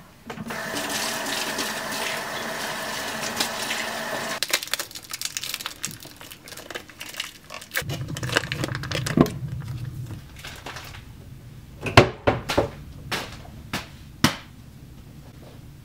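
Kitchen faucet running over hands being washed in a stainless steel sink, stopping about four seconds in. Then a foil wrapper rustles and crinkles over a mixing bowl, with a few sharp knocks near the end.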